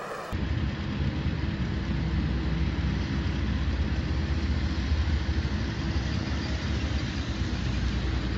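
Cars running on a road close by: a steady low engine rumble with road noise, starting abruptly a moment in.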